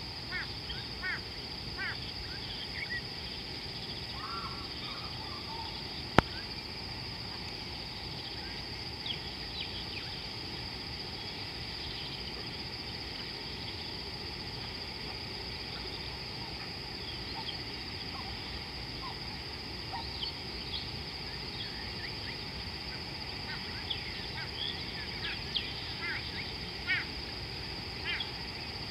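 Wild birds chirping and calling in short, scattered notes over a steady high-pitched insect drone, with one sharp click about six seconds in.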